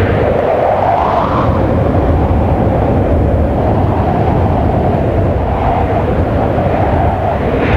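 Steady rushing noise of air, like wind or a plane in flight, swelling up in a whoosh about a second in and again near the end.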